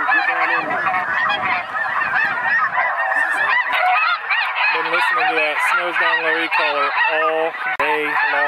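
Snow geese calling: a dense, constant chorus of many overlapping high yelps, joined from about halfway through by a run of lower honks repeated roughly twice a second.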